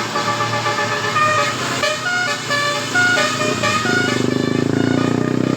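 Bus 'telolet' musical horn of the Basuri type playing a quick melody of short stepped notes. About four seconds in, the tune stops and a loud engine carries on running.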